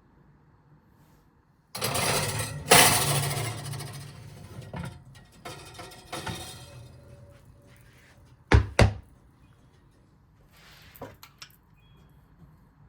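Kitchen handling noises: about two seconds in, a burst of clattering and rustling opens with a loud clunk and dies away over several seconds, then two sharp knocks in quick succession, and a few light clicks near the end.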